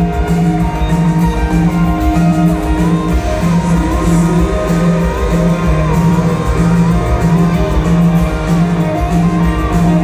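Live rock band playing an instrumental passage, recorded from the audience: electric guitar lines with bent notes over drums and a steadily pulsing low note.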